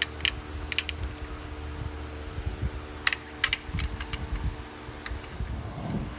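Irregular sharp metallic clicks and clinks of a socket wrench and bolts as oil pan bolts are backed out, over a steady low hum.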